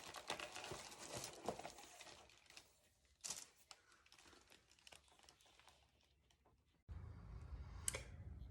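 Faint crinkling rustle for about two seconds, then a few scattered clicks over near silence. A low steady hum starts abruptly near the end.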